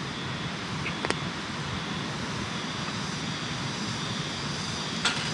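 Steady rushing outdoor noise with a faint high steady tone. Over it come a light sharp click about a second in and a few more clicks near the end as a cast-iron skillet is handled on a campfire grill grate.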